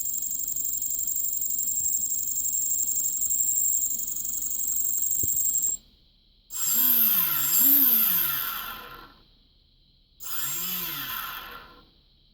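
Small electric motor running steadily with a high whine, which cuts off suddenly about six seconds in. A motor then runs twice in short spells whose pitch rises and falls, first twice over about two and a half seconds, then once, each spell dying away.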